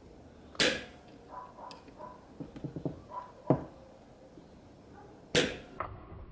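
Igniter of a 4.5 hp Nelson Brothers hit-and-miss engine being tripped by hand with a screwdriver to test it: three sharp metallic snaps, about a second in, midway and near the end, with lighter clicks of the lever and screwdriver between them.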